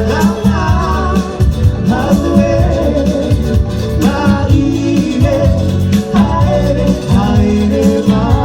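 Cook Islands dance music: a voice singing wavering phrases over steady bass notes and a regular beat.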